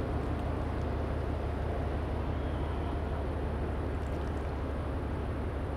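Steady low engine rumble from a harbour tug and a large container ship, even in level, with a faint hiss above it.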